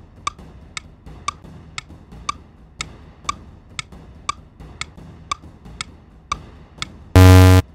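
Clock-ticking sound effect for a countdown timer, about two ticks a second. Near the end a loud, short buzzer sounds, marking that the time is up.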